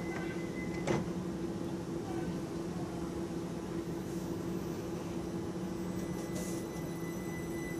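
London Overground Class 378 electric multiple unit standing at the platform: a steady electrical hum from its onboard equipment, with a sharp click about a second in and short hisses near the end.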